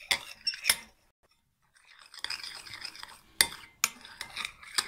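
A spoon stirring shampoo and shaving foam in a glass bowl: a scraping hiss with several sharp clinks of the spoon against the bowl, and a short silent pause about a second in.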